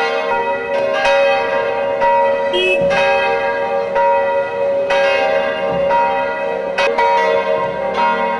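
Church bells ringing, struck again every second or two, with each stroke ringing on into the next.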